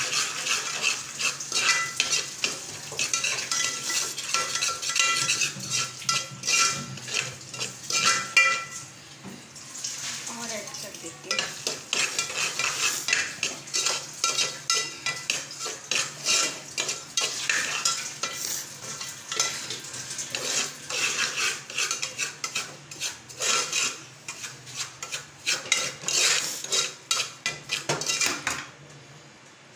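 Slotted steel spoon stirring and scraping semolina roasting in ghee around an aluminium pot: rapid, continuous scrapes and clinks of metal on metal, with a faint ring under the strokes during the first eight seconds or so. The stirring stops shortly before the end.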